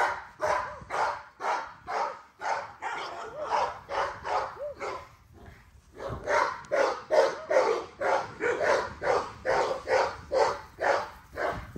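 American bully puppies barking over and over, about three short barks a second, with a brief lull about five seconds in before the barking picks up again.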